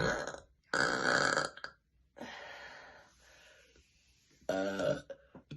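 A woman burping loudly: a long, throaty burp about a second in, a breathy fading sound after it, and a shorter, deeper burp near the end.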